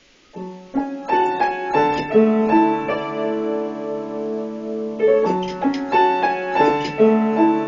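Piano playing: a few single notes about half a second in, building into sustained, ringing chords, with a new phrase of struck notes about five seconds in.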